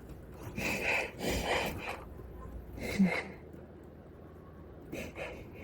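A person's gasping, breathy inhalations and exhalations, with one short sharp burst about three seconds in.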